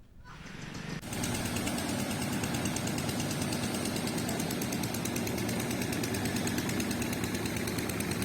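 An engine running steadily with a fast, even rattle, fading in over the first second.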